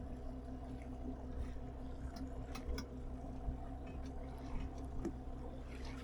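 Boat engine running low and steady, with a few faint ticks over it.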